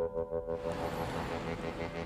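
Synthesizer music holding steady tones with a regular pulse. About half a second in, a steady hiss of city traffic noise comes in under it.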